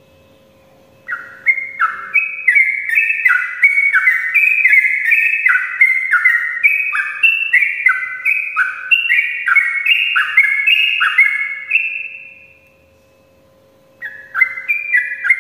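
Yellow-vented bulbul (trucukan) singing a long, rapid 'ropel' run of bubbly falling notes, about two a second. It starts about a second in, breaks off for a moment a little after twelve seconds, and picks up again near the end.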